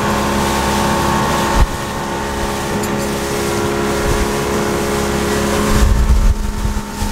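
Small fishing boat's motor running steadily under way, a constant hum of several tones over water rushing past the hull, with wind buffeting the microphone. A single knock about a second and a half in.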